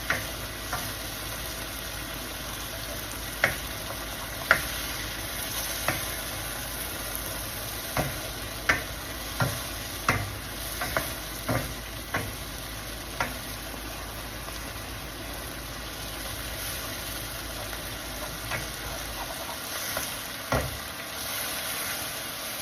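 Mushroom and tomato gravy sizzling in hot oil in a pan, its water cooked off so the oil is separating. A spatula stirs it, scraping and knocking against the pan in irregular strokes that are thickest through the first half.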